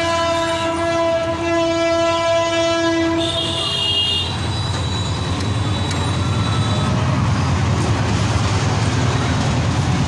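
A long, steady horn blast held until about three seconds in, a short higher tone just after it, then a steady loud low rumble.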